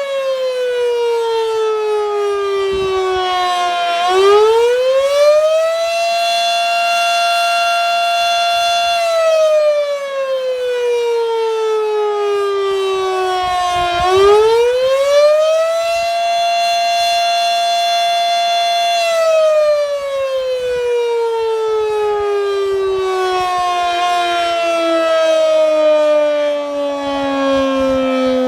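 Model 5 mechanical outdoor warning siren sounding a wail on its monthly test. Its pitch climbs over about two seconds, holds for about three and slides down over about five, twice. Near the end it falls further and more slowly.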